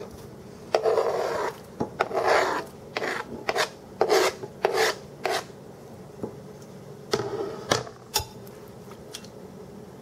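Knife blade scraping cubed butter and minced onion off a cutting board into a casserole dish. It is a run of short scrapes in the first half, with two more about seven seconds in.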